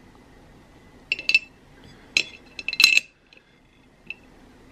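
A scatter of light clinks and taps on a porcelain plate as small pieces of a chocolate candy kit are handled on it, the loudest near three seconds in.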